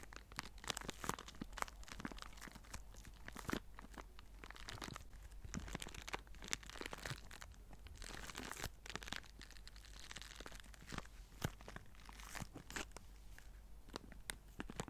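A small zip-lock plastic bag stuffed with crumpled paper being squeezed and turned in the fingers, giving a dense run of irregular crinkles and crackles.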